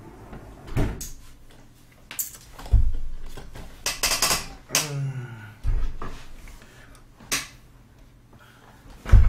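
Handling noises as a man sits down in a gaming chair and moves things on a desk: scattered dull thumps and knocks, a burst of rustling about four seconds in, then a short creak.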